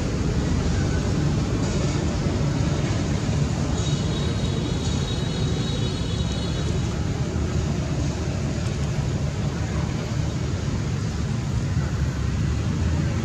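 Steady low rumbling background noise, with a faint high-pitched tone from about four to seven seconds in.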